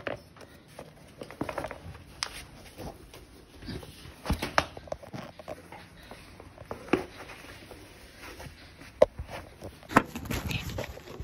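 Light knocks, taps and rustles of white leather sneakers being handled and set down on a wooden floor, with a sharp click about nine seconds in.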